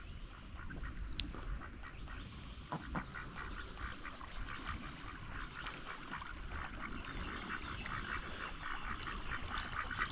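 A group of ducks quacking, many short calls in quick succession.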